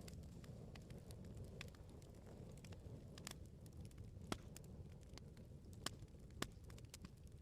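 Wood bonfire crackling: a soft low rumble of burning with a steady scatter of small sharp pops. Three louder snaps come in the second half.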